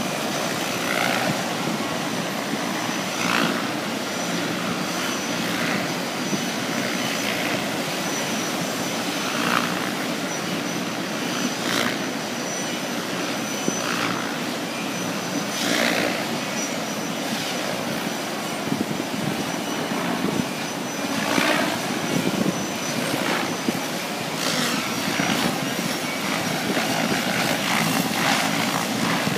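Radio-controlled helicopter flying aerobatics, its main rotor blades whooshing in short swells every couple of seconds as the model rocks and flips, over a thin steady high whine.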